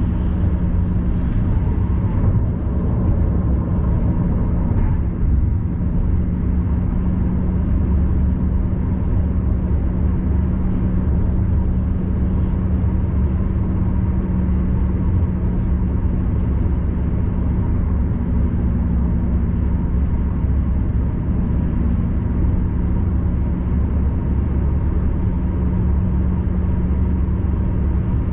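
Car cabin noise at expressway speed: a steady low drone of tyres and engine with a constant hum.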